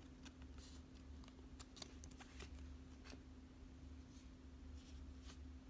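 Near silence: faint ticks and light rustles of a trading card being handled and slipped into a plastic card sleeve, over a faint steady hum.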